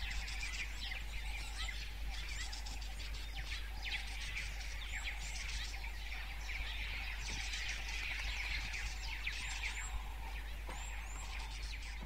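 Wild birds chirping and calling in a dense chorus of short, high chirps.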